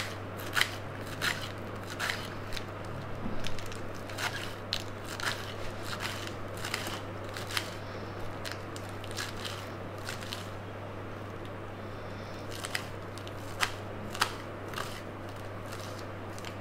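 Kitchen knife chopping spinach on a glass chopping board: sharp, irregular taps of the blade on the glass, about one or two a second, thinning out around the middle, over a steady low hum.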